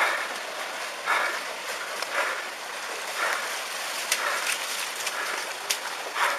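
Tsunami floodwater rushing inland as a steady wash of water noise. A short sound repeats on top of it about once a second, with a few sharp clicks.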